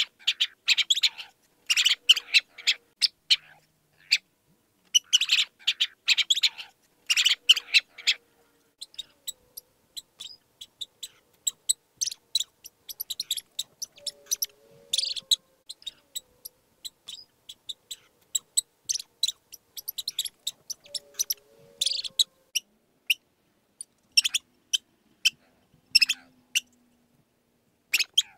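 Mouse squeaking: rapid runs of short, high-pitched squeaks and chirps, bunched into dense bursts of about a second during the first eight seconds, then sparser and scattered.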